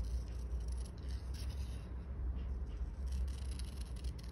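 Scissors snipping through a photo print in a few short, irregular cuts, with the paper rustling as it is handled, over a steady low hum.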